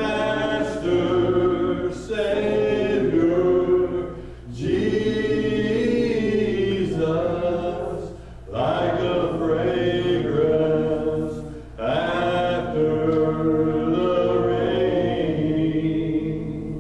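Church congregation singing together, unaccompanied, in held phrases of about four seconds with short breaks for breath between them, over a steady low hum.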